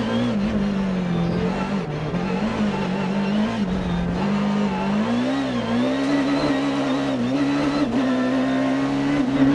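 Peugeot 306 Maxi rally car's four-cylinder engine heard from inside the cabin at speed, the revs falling and rising several times, then climbing and holding higher near the end.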